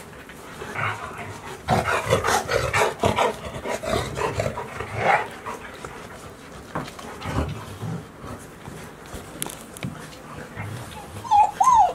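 Golden retriever puppies yapping and scuffling as they mob an adult golden retriever, with a busy burst of short yaps and clicking paws from about two to five seconds in. Near the end come two high, bending whines.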